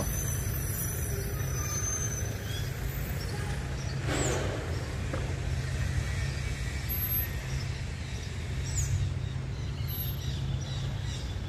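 Street ambience: a steady low rumble of traffic, with a brief swell about four seconds in as a vehicle passes.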